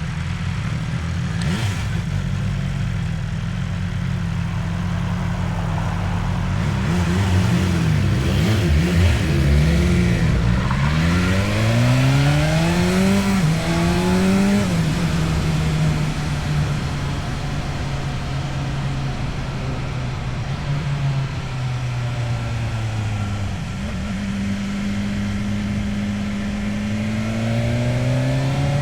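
Motorcycle engine through an Akrapovic exhaust, running steadily, then revving up and down in the middle and rising in pitch again under acceleration near the end.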